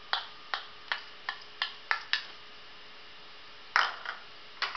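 Kitchen clinks as a small bowl of chopped onion is knocked and scraped empty into a steel mixing bowl: about seven quick light taps over the first two seconds. Then a louder knock, as the emptied bowl is set down on the stone counter, and one more just before the end.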